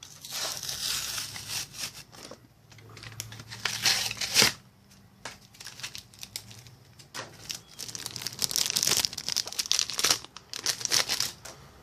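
Foil wrapper of a Yu-Gi-Oh booster pack being crinkled and torn open by hand, in irregular bursts, the loudest about four and a half seconds in and a long stretch of rustling near the end.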